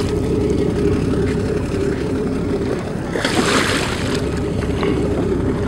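A big cobia thrashing and splashing at the water's surface beside the boat, about a second of splashing starting some three seconds in, over a steady low rumble from the boat and wind.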